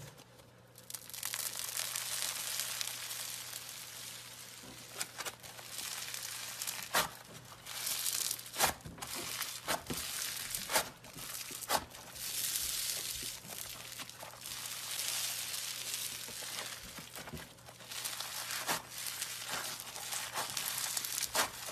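Floam, a slime packed with tiny foam beads, squeezed and kneaded by hand: a dense, crunchy crackling with sharp pops every second or so as the beads are pressed together.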